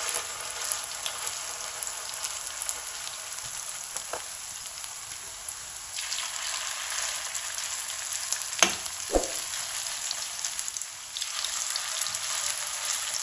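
Small patties of egg-bound masala frying in shallow oil in a non-stick frying pan: a steady crackling sizzle that swells twice as fresh spoonfuls go in. A metal spoon knocks against the pan a few times, sharpest about eight and a half seconds in.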